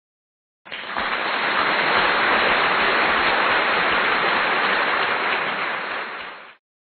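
Dense applause, many hands clapping together, starting abruptly about a second in and cutting off sharply after about six seconds.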